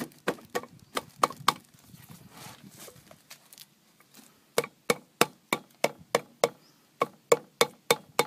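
A hammer or mallet tapping a Speedi-Sleeve installer cap, driving the thin steel repair sleeve onto the worn rear oil-seal surface of a Ford FE crankshaft. There is a run of about six sharp taps at about three a second, a pause of about three seconds, then a steady run of about a dozen more at the same pace.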